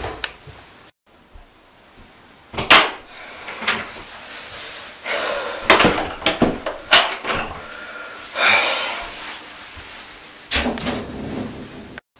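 Irregular knocks and clunks of a wooden interior door being handled, opened and shut.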